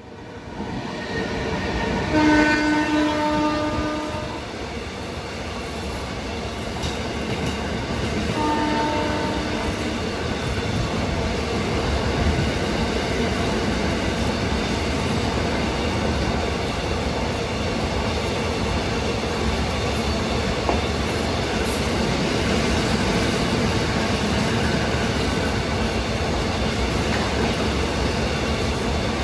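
WAG12B electric freight locomotive sounding its horn twice as it passes at speed: a blast of about two seconds, then a shorter one. Its long train of container flat wagons follows, rolling past with steady wheel clatter.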